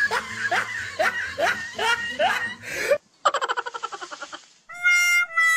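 Laughter: a run of about seven rising 'ha' bursts over three seconds, followed by a brief buzzy rattle and then a few steady electronic tones near the end.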